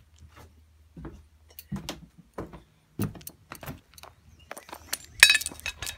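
Scattered clicks and knocks of metal scooter parts being handled, with a loud metallic clatter about five seconds in.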